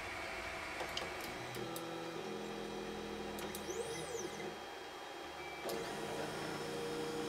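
Geeetech MeCreator 2 3D printer's stepper motors moving the axes at the start of a print, whining in steady tones whose pitch changes from one move to the next, with a rising-then-falling whine near the middle. A few sharp clicks come about a second in.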